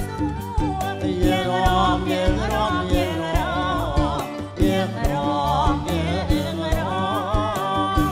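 Cambodian romvong dance song played live: a woman sings a wavering, ornamented melody over a backing band, with a steady drum beat.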